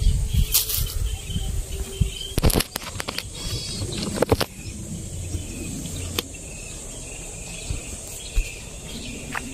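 Outdoor ambience: a steady high insect drone with scattered short bird calls. Over it in the first half come rustling, low rumble and a few sharp knocks from footsteps on dry ground and handling of the camera.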